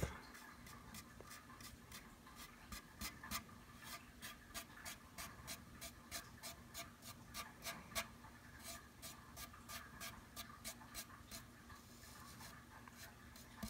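Bare fingertip dabbing and rubbing grainy wood filler into a 3D-printed plastic part: faint, irregular scratchy ticks, a few a second, with one sharper tick about eight seconds in.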